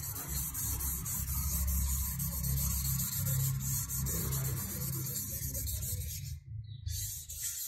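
A hand rubbing over charcoal on drawing paper, blending it into a smooth tone: a steady rubbing hiss that breaks off about six seconds in and comes back briefly.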